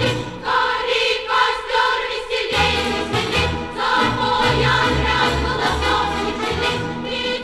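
A choir singing a Soviet pioneer song over instrumental accompaniment with a moving bass line, played from a 1967 Melodiya vinyl record.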